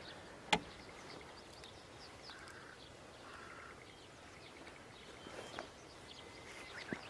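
Faint dawn birdsong, with scattered short chirps from several birds over a steady low hiss. There is a sharp, loud click about half a second in. Near the end comes a short loud call: the crowing of a Japanese green pheasant.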